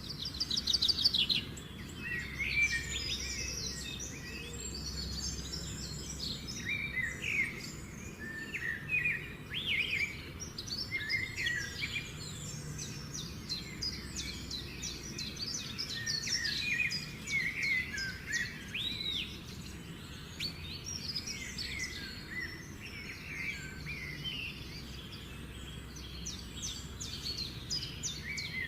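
Several songbirds chirping and trilling at once, short varied calls overlapping one another, over a low steady background noise.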